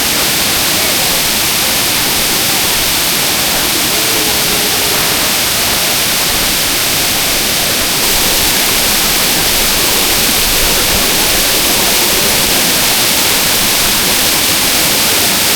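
Waterfall pouring: a loud, steady rush of falling water, a little louder from about eight seconds in.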